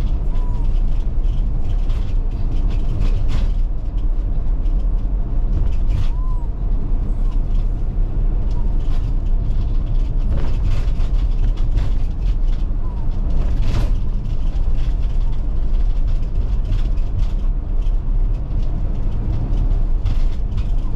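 Steady low rumble of a motorhome's engine and tyres heard inside the cab while driving, with scattered clicks and rattles.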